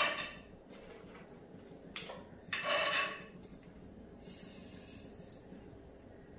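Peanuts rattling as they are tipped by hand from a steel tin into a frying pan: a short rattle right at the start, a small one about two seconds in, and a longer, louder one soon after.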